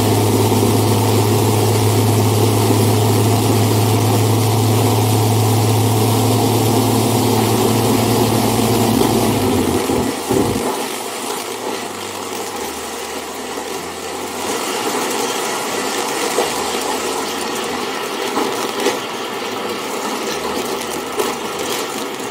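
Slick 540 aerobatic aircraft's six-cylinder Lycoming engine and propeller running steadily during a taxi run, heard from the cockpit. About ten seconds in, the deep steady drone drops away and the sound gets quieter.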